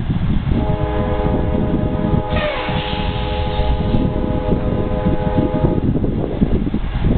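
Diesel locomotive air horn blowing one long chord of several steady tones from an approaching freight train, starting about half a second in and stopping near six seconds. A heavy low rumble runs underneath, and a brief rushing noise with a falling pitch cuts in a little over two seconds in.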